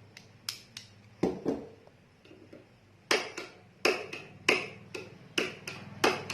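An old lighter being clicked over and over, about a dozen sharp clicks with a pause in the middle, failing to light.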